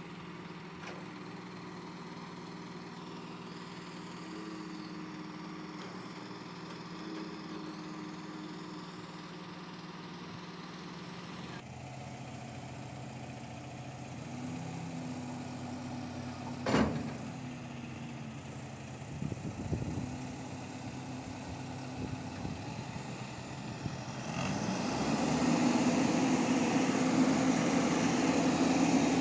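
Mobile crane's diesel engine running steadily, with the note shifting in pitch through the lift and growing louder about three-quarters of the way through. A single sharp click sounds a little past the middle.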